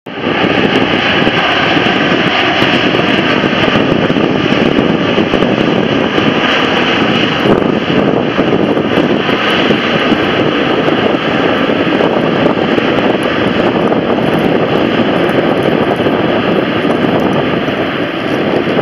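Airbus A380's four jet engines running loud and steady as the airliner rolls along the runway.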